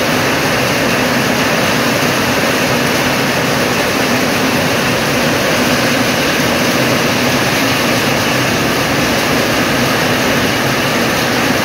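Heavy rain falling in a steady, loud downpour.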